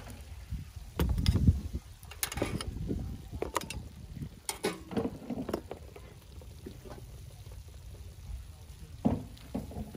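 Bamboo tongs picking grilled snail shells off a metal grill rack and setting them in a woven bamboo basket: scattered light clicks and knocks of shell on tongs, rack and basket.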